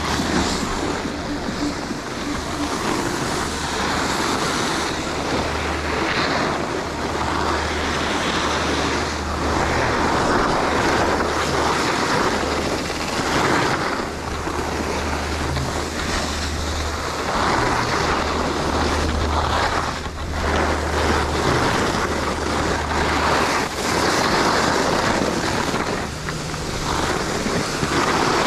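Skis scraping over packed snow through a run of turns, the hiss swelling and fading every second or two, with steady wind rumble on the microphone.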